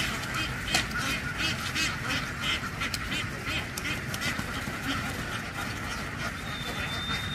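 A large flock of domestic ducks quacking continuously, many calls overlapping.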